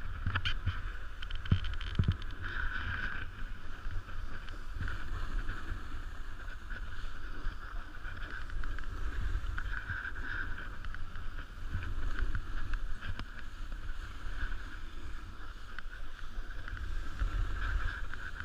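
Snowboard sliding and carving on firm groomed snow, a continuous scraping hiss that swells and eases through the turns, with wind rumbling on the microphone; a few sharp clicks in the first couple of seconds.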